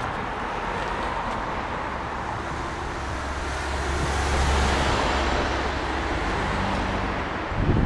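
Road traffic on a busy street, a vehicle's low engine rumble swelling through the middle and fading. A brief low thump near the end.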